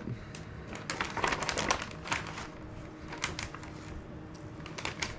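Plastic vacuum-sealer bag crinkling and rustling as fish fillets are packed into it: an irregular scatter of light crackles and clicks.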